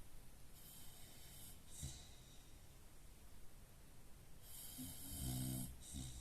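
A dog snoring in its sleep: two snoring breaths with a whistling hiss. The second, about four and a half seconds in, is louder and adds a low rattle.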